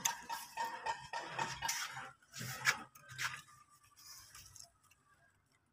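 Scissors snipping a bitter gourd from its vine, a few sharp clicks and snips among the rustle of the vine's leaves in the first three seconds or so, fainter after.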